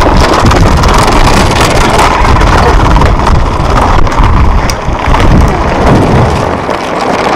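Loud wind buffeting a small action camera's microphone, mixed with the rumble of drift trikes' hard PVC-sleeved rear wheels rolling over paving stones.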